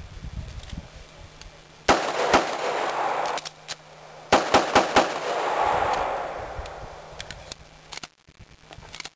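Pistol fire in a FAST drill string: two quick shots about two seconds in, a pause of about two seconds for the reload, then four faster shots in under a second, each string trailed by a long echo.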